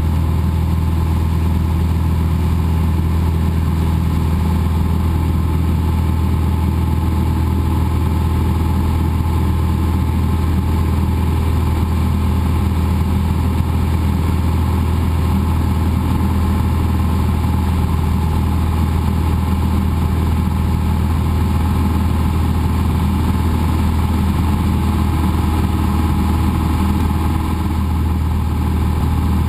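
Cessna 172's piston engine and propeller droning steadily in level flight, heard from inside the cockpit as a deep, unchanging hum.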